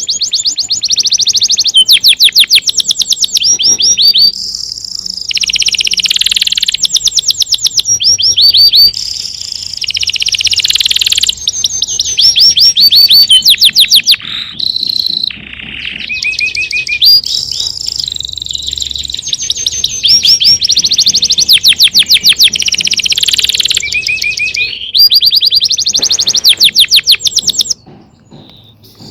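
Small songbirds singing loud, high, rapid trills of repeated notes, phrases overlapping one another with brief pauses between them; the song drops away about a second before the end.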